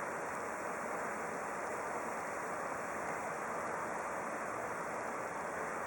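Steady, even background hiss with no distinct events: room tone or recording noise.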